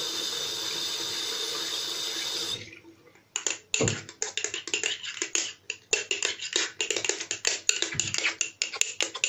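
Water running from a tap, shut off after about two and a half seconds; then a fast, irregular run of wet clicks and squelches as homemade slime, just wetted to soften it, is kneaded by hand.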